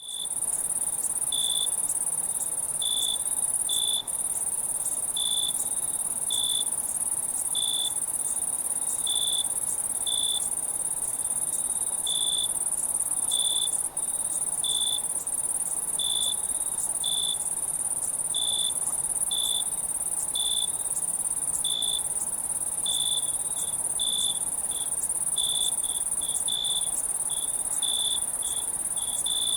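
Night insect chorus: a steady high-pitched trilling, with a separate short chirp repeating about once a second that comes faster near the end.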